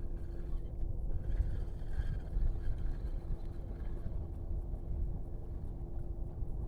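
Distant motorboat engine, a faint steady drone, over a low rumble of wind and water on the microphone.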